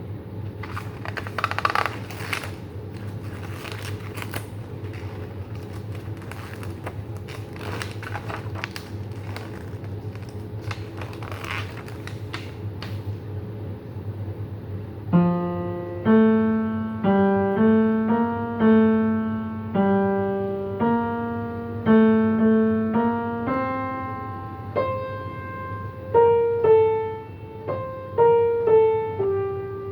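A low steady hum with scattered rustling and clicks, then, about halfway through, a piano starts playing a two-voice passage note by note: a melody over a lower bass line, each note struck and left to fade.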